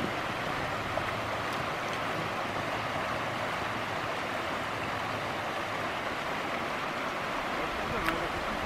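Steady rushing of a shallow mountain stream flowing over rocks.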